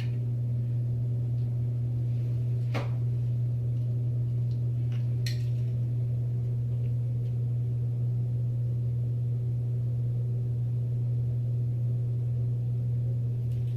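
A steady low hum with fainter overtones above it, and a few soft clicks, one about three seconds in and another about five seconds in.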